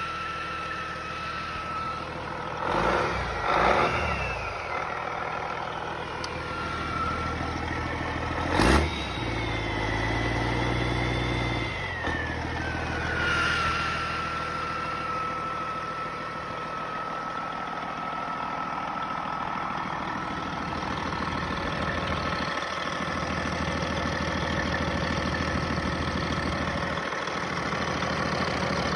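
Detroit Diesel Series 60 12.7-litre turbocharged inline-six diesel running shortly after a cold start: a steady idle with a constant turbo whine. It is revved up and back down twice, about three seconds in and again around ten seconds in, with one sharp knock just before the second rev.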